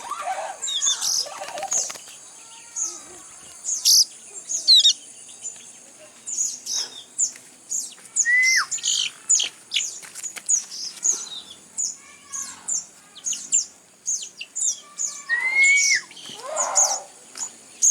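Fledgling sogon birds chirping: a steady stream of short, high-pitched chirps, with a couple of lower whistles that rise and then fall.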